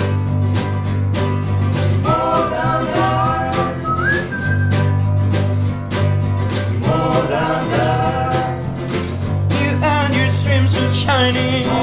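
Acoustic band playing an upbeat song: acoustic guitars strummed to a steady beat, with a whistled melody line and no lyrics.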